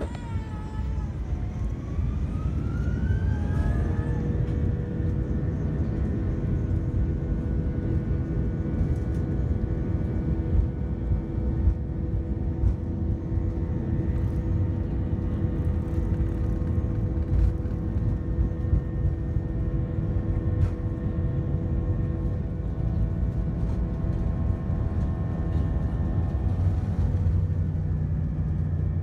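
Airbus A321's jet engines spooling up to take-off thrust, heard from inside the cabin: a whine rises in pitch over the first few seconds, then holds as a steady set of tones over a loud, continuous rumble as the airliner rolls down the runway.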